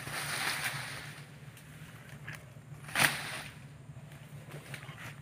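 Dry oil palm fronds and undergrowth rustling as they are pulled and pushed through by hand, with one sharp crack about three seconds in.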